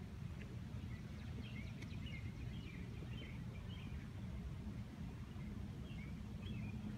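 Low steady rumble of a 2002 Pontiac Trans Am WS6's 5.7-litre LS1 V8 idling at the exhaust, with birds chirping in short bursts for about two seconds early and again near the end.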